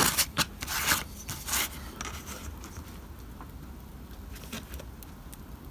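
Stiff card rubbed and slid across a cutting mat by hand, a few quick scraping strokes in the first second and a half, then quieter handling as a steel ruler is laid on the card.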